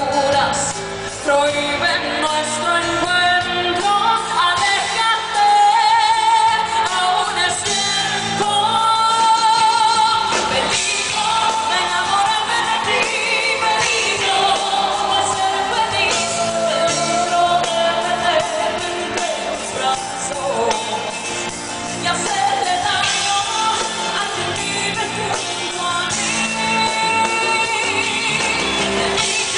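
A woman singing a pop ballad into a microphone over a live band of drums, electric guitar and keyboard, heard through the concert PA.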